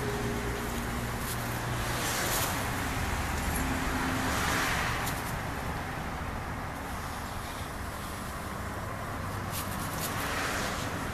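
Steady low background rumble, with a few faint clicks about two, five and ten seconds in.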